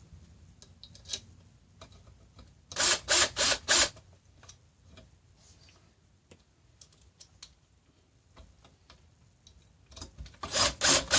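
Ratchet wrench driving bolts into the bar stool's metal leg frame: a quick run of four loud ratcheting strokes about three seconds in and another run near the end, with small clicks and taps of parts being handled between them.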